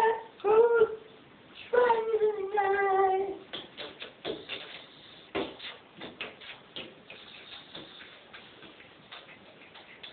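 A man singing in a tiled bathroom: two phrases of high held notes that slide downward, ending about three and a half seconds in. After that come scattered short clicks and knocks.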